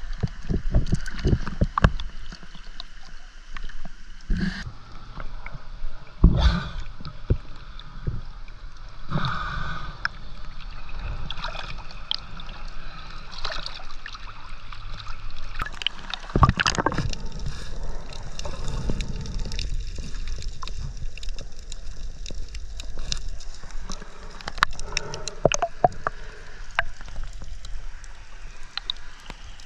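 Seawater sloshing and gurgling around rocks in a rock pool, with scattered knocks and clicks of handling throughout.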